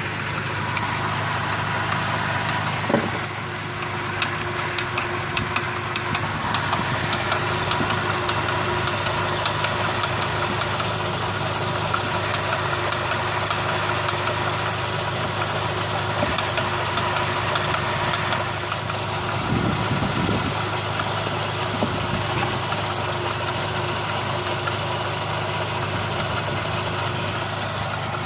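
Engine idling steadily with a knock running through it, the knock being the fault the recording was made to capture.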